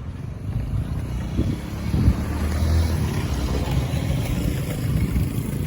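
A motor vehicle passing on the road: a low rumble with a swell of road hiss through the middle that eases off near the end.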